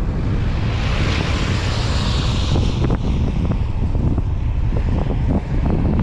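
Car driving along a road: steady low wind rumble on the microphone with tyre noise. A hiss swells and fades about one to three seconds in, followed by scattered light ticks.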